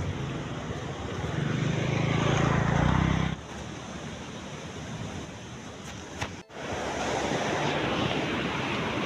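Wind buffeting a phone microphone outdoors, a rumbling hiss that is loudest in the first three seconds, then drops abruptly about three seconds in and again briefly past six seconds before returning.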